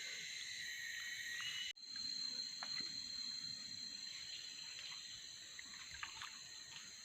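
Steady high-pitched chorus of forest insects, several whining tones at once, with a few faint clicks and rustles. The sound cuts out briefly just under two seconds in and returns with one high whine standing out.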